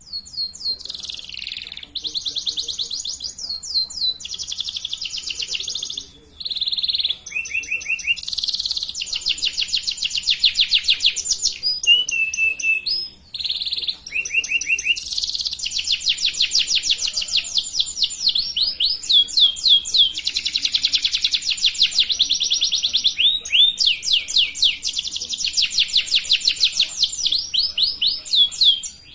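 Domestic canary singing long runs of rapid trills, each phrase a fast repeat of one note, with brief breaks about six and thirteen seconds in. It is a lure song played to teach young canaries to sing.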